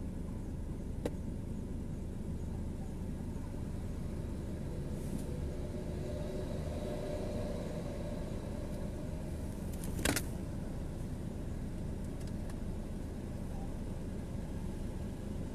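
Steady low rumble of background noise, with a faint click about a second in and a sharper click about ten seconds in.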